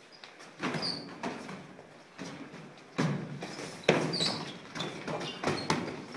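Boxing gloves landing during sparring: a string of sharp thuds and slaps, the loudest about three and four seconds in, with sneakers squeaking and shuffling on the gym floor.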